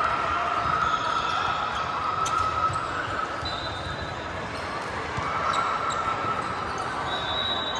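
Indoor volleyball rally on a hardwood court in a large, echoing gym: sneakers squeak on the floor and the ball is struck a few times.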